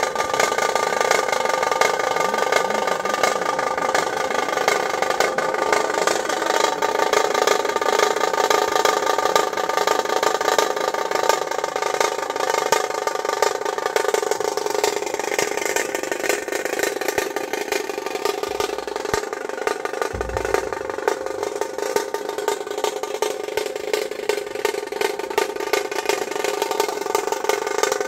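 Dhol-tasha drumming: several large barrel-shaped dhol drums and a tasha kettle drum beaten with sticks in a fast, dense rhythm that keeps going without a break.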